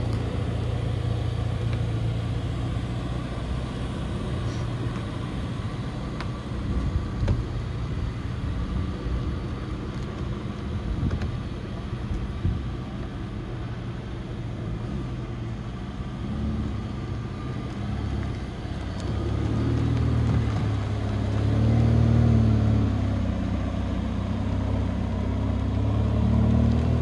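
Mercedes-AMG GT Black Series 4.0-litre twin-turbo V8 running at idle with a steady low rumble, then pulling away under light throttle, its revs rising and falling from about 19 seconds in.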